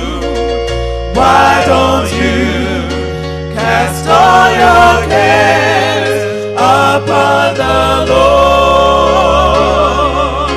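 Gospel song with voices singing long notes with vibrato over instrumental backing and a bass line that steps between notes.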